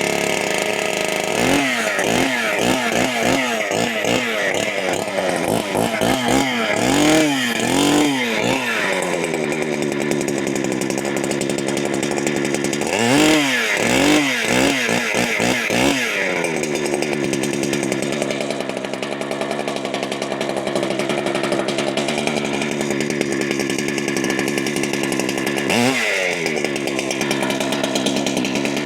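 Holzfforma clone big-bore two-stroke chainsaw, just started from cold in freezing weather, being warmed up: the throttle is blipped over and over for the first several seconds and again about halfway through, then the saw settles to a steadier idle with one more short rev near the end.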